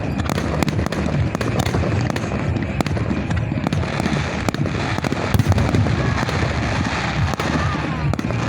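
Fireworks display: an unbroken barrage of bangs and crackles, several a second, at an even, loud level.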